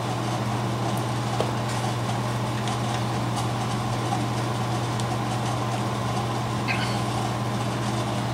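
A steady low machine hum, unchanged throughout, with a few faint small ticks.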